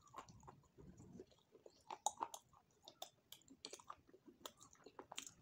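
Faint close-miked chewing of a soft chocolate-covered food, with scattered small wet mouth clicks and smacks.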